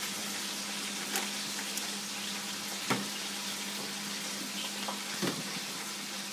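Chicken frying in hot oil: a steady sizzle, over a low steady hum, with a few faint knocks.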